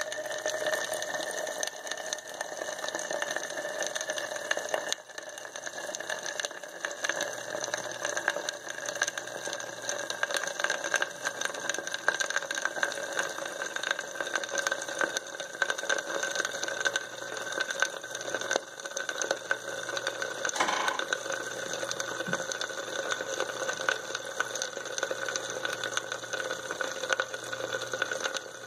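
Rapid, irregular crackling and popping of many tiny explosions in a test tube, where manganese heptoxide formed from potassium permanganate and sulfuric acid reacts with the alcohol layered above it, with one sharper pop about two-thirds of the way through over a steady hum.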